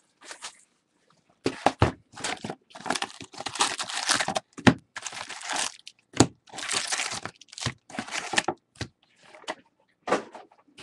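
Plastic wrapping on a trading-card box and its packs crinkling and tearing as it is opened, in irregular bursts, with a few sharp knocks from handling the box.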